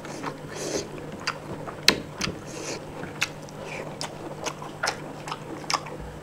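A person eating close to the microphone: chewing and biting, with sharp wet mouth clicks and smacks about twice a second, irregularly spaced, and two brief hissy sucking sounds.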